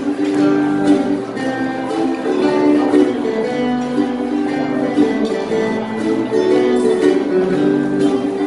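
Group of four acoustic guitars strummed and picked together in a steady rhythm, playing a song.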